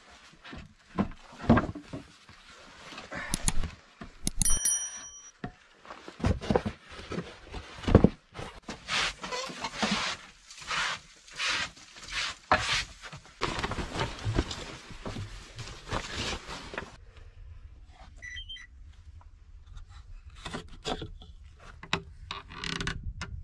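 Knocks, bumps and clatter of wood being handled and set down, many in quick succession, with a brief metallic ring about four and a half seconds in. After about seventeen seconds the knocking thins out to a few scattered bumps.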